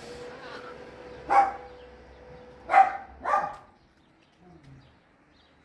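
Three short, loud, harsh animal calls, the second and third close together, over a faint steady hum.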